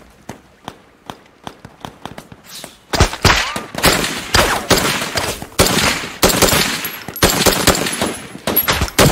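Battle gunfire: scattered single shots for the first three seconds, then heavy rapid fire from several guns at once, with shots overlapping in quick volleys.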